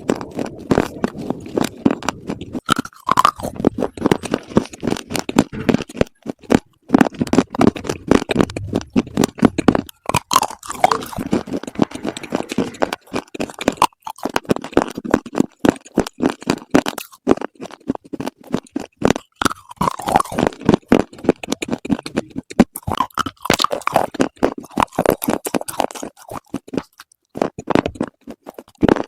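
Close-miked chewing and crunching of hard slate bars: a dense run of crisp, irregular crunches and bites, with a few brief squeaky mouth noises in between.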